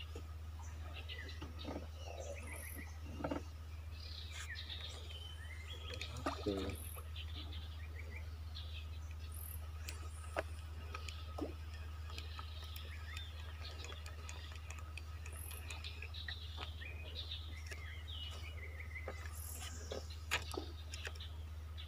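Many birds chirping and calling from the trees, over a steady low hum, with a few sharp knocks.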